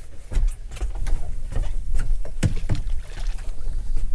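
A small fishing boat's open deck at sea: a steady low rumble, with a string of knocks and taps from fishing tackle being handled. The two loudest knocks come close together about two and a half seconds in.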